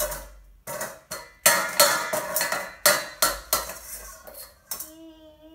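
Dishes and cutlery clattering: a quick run of sharp clinks and clanks with short ringing tones. A short held voice-like tone follows near the end.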